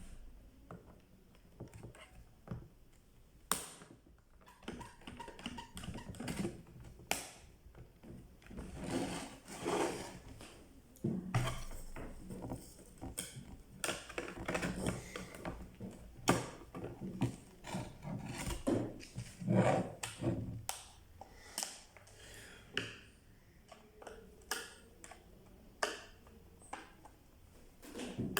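Irregular clicks, taps and scrapes of hard plastic and metal parts being handled and worked on during a clothes iron repair.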